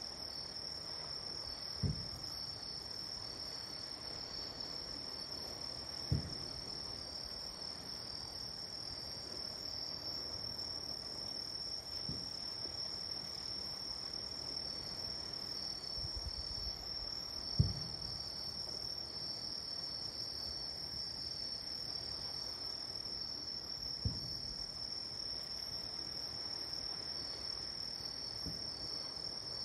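Steady high chirring of night insects throughout, with about six dull, low booms of distant fireworks a few seconds apart; the one about two-thirds of the way through is the loudest.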